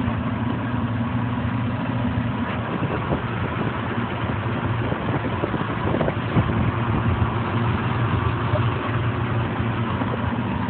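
Small tractor engine idling steadily.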